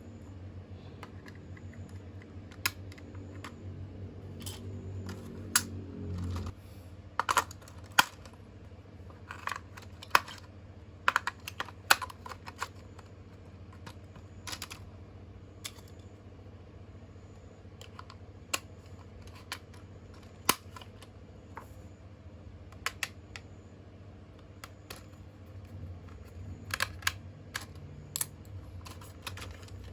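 Irregular light clicks and taps of plastic toy parts being handled, some sharper knocks among them, over a low steady hum that cuts off suddenly about six seconds in.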